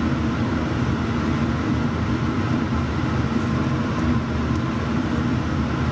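Steady mechanical drone with a low hum from a running kitchen appliance, unchanging in pitch and level.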